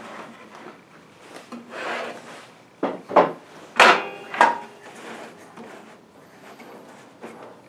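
A wooden board being slid and knocked about on a table saw's metal top while the saw is off: scraping, with a few sharp clacks between about three and four and a half seconds in, the loudest near four seconds.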